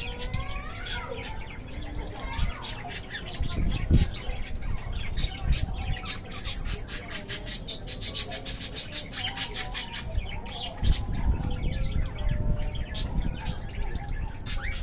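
Budgerigars chirping in many short high calls, with a fast run of rapid chirps in the middle. Low thumps about four seconds in and again around eleven seconds.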